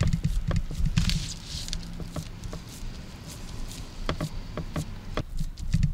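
Hands patting and pressing a raw meatloaf mixture into shape on a foil tray: irregular soft wet pats and squishes, over a low steady hum.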